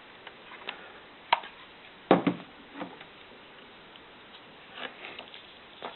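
A few scattered small clicks and taps from handling a D-sub serial connector hood and its screws, with a sharper knock about two seconds in.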